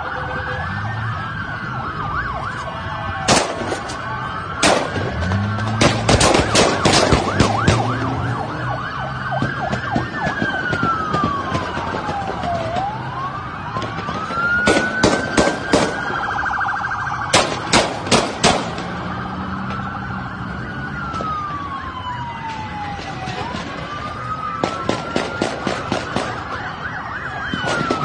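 Police car sirens wailing, sweeping up and down over and over. Repeated bursts of sharp bangs come several in quick succession, loudest around six to seven seconds in and again twice in the middle.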